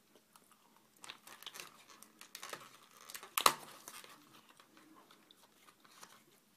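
Handling noises from Play-Doh playset pieces: light crinkling and scattered clicks, with one sharp click about three and a half seconds in.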